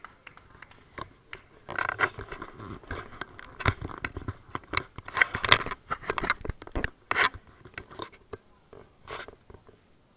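Fabric rustling and scraping against a handheld or worn camera's microphone as it is moved: an irregular crackle with sharp clicks, loudest in the middle.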